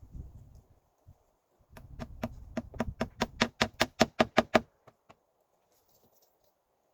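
Hammer driving a nail into wood: a quick run of about fifteen blows over three seconds, getting louder, then stopping. A dull thump comes right at the start.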